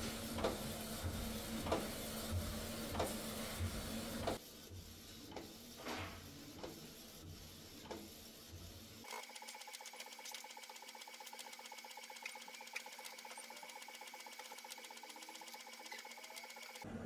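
UV printer with a rotary attachment running while it prints on a drink can. A steady machine hum with a regular click about every half second gives way, about nine seconds in, to a steady high whine with rapid fine ticking.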